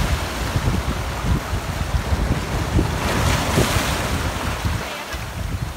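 Sea surf breaking and washing over rocks, with wind buffeting the microphone; a louder wave crashes about three seconds in.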